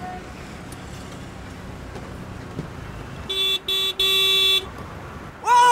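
Low rumble of traffic, then a car horn honks three times, two short toots and a longer blast, impatient honking in stopped traffic. Just before the end a man starts shouting.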